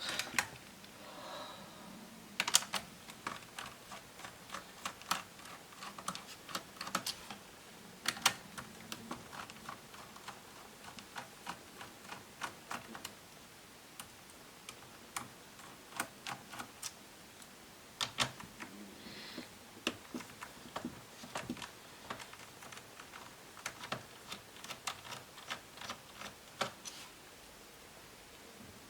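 Irregular sharp clicks and taps of plastic and small metal laptop parts being handled and pried apart during disassembly of a Lenovo B550, with short pauses between bursts.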